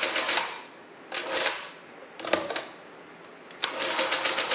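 Madas Portable 12e electric mechanical calculator clattering in several bursts of rapid mechanical clicks as its motor drives repeated subtraction cycles in a division. Shorter clunks come from the correction and carriage-shift steps between the runs. The longest burst comes past the middle and lasts over a second.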